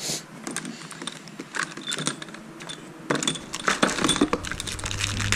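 Steel ARP cylinder-head studs clinking against each other as they are handled and rummaged in their box on the workbench. Scattered metallic clicks at first, then a dense run of clinks over the last two seconds or so.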